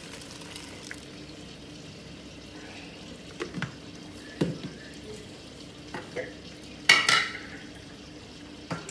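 Blended fresh tomatoes and peppers poured into a pot of onions frying in oil, which sizzles quietly and steadily. A few short knocks against the pot, and a louder scrape about seven seconds in.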